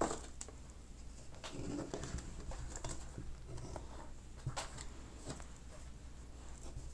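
Faint handling noises: scattered soft rustles and a few sharper ticks, over a low steady hum.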